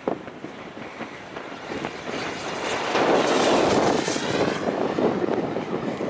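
Radio-control model airplane's motor and propeller passing by, swelling to its loudest about three to four seconds in, with wind buffeting the microphone.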